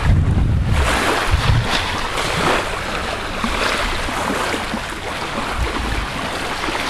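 Wind buffeting the microphone in heavy gusts, over a steady wash of small waves lapping on the shore.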